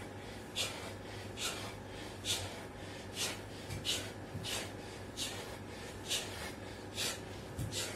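A man breathing hard during burpees with push-ups: short, sharp breaths, about one a second, in a steady rhythm.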